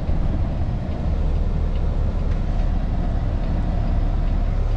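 Steady low rumble of a semi-truck's diesel engine and tyre noise, heard from inside the cab while driving.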